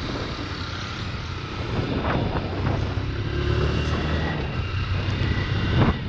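Motorcycle engine running from the rider's seat as the bike pulls out onto the road and picks up speed, getting louder about two seconds in.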